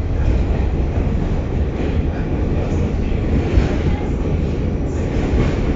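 New York City subway car running between stations, heard from inside the car: a steady, loud, low rumble of the wheels on the track.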